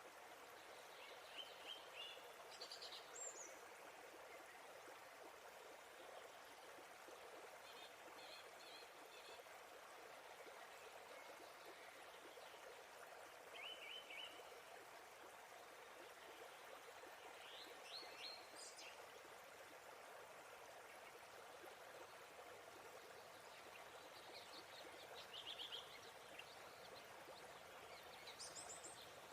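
Quiet, steady rush of a waterfall with small birds chirping in short bursts every few seconds.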